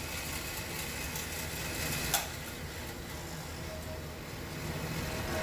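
Bench grinder motor running steadily with a low hum, after wire-wheel cleaning of a bolt. A single sharp click a little over two seconds in.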